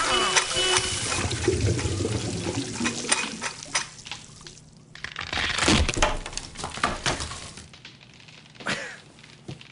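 Water rushing and splashing into a bathroom sink, with scattered knocks and clanks. It is loudest in the first few seconds, has a sharp hit about six seconds in, and grows quieter toward the end.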